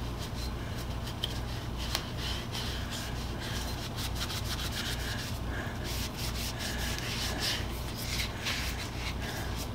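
Cotton rag rubbing briskly along a wooden hammer handle, buffing dried paste wax, in a run of short irregular strokes.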